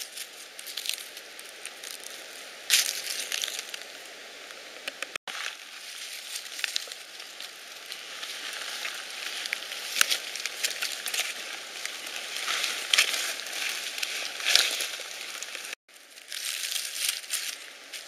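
Dry leaf litter and twigs rustling and crackling as chanterelle mushrooms are picked by hand close to the microphone, with a few sharper snaps and clicks. The sound drops out briefly twice, about a third of the way in and near the end.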